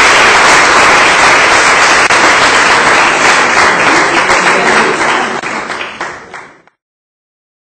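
Audience applauding, the clapping thinning and fading after about five seconds, then cutting off suddenly.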